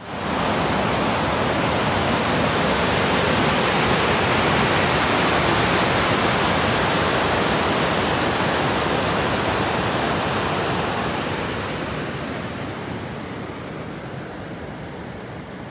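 Water rushing over a dam spillway into a churning pool below: a loud, steady rush that starts suddenly and fades over the last few seconds.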